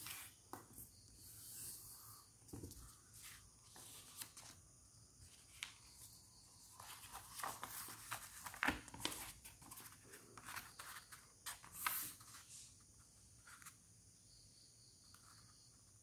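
A square sheet of origami paper being folded, creased flat and unfolded by hand: faint rustling and crackling with scattered sharp crinkles, the loudest about nine and twelve seconds in.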